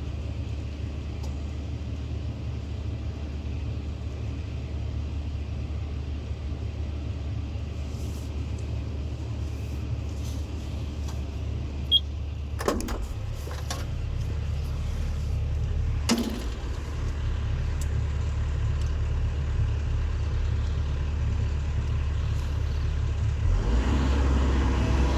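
Diesel engine of heavy earthmoving machinery running steadily with a low rumble, and a few sharp knocks around the middle. Near the end the engine gets louder and its note steadies and rises.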